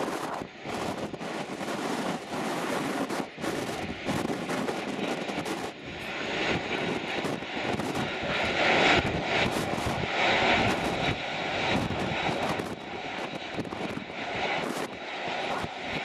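Jet engine noise of an Airbus A380 airliner, a steady rush that swells about six seconds in and stays loud with ups and downs.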